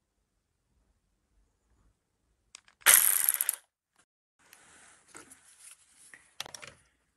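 Metal hand tools being handled. About three seconds in there is a loud rattle of rapid metallic clicks lasting under a second, then quieter clicks and scraping.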